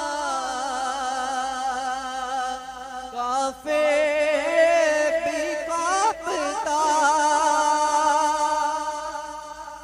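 A young man singing an Urdu naat solo, drawing out long wavering notes. There is a short break about three and a half seconds in, then one long held note that fades away near the end.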